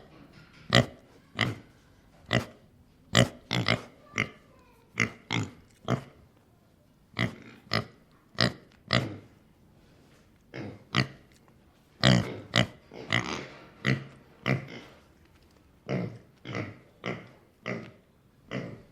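Pig grunting: a long series of short grunts at irregular intervals, some coming in quick runs of two or three.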